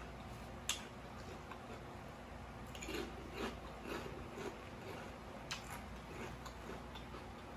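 A person chewing a mouthful of food with the mouth closed, with soft wet smacks that are densest from about three to four and a half seconds in and a sharp click a little under a second in.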